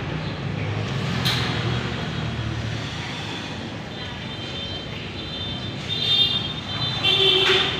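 Road traffic running past, with a vehicle's shrill high-pitched tone sounding in the second half, loudest near the end.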